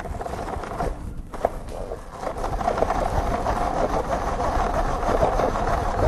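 Tupperware Quick Chef hand-crank chopper being cranked steadily, its blades spinning through chunks of cooked chicken breast to shred it: a continuous whirring rattle that gets louder about two seconds in.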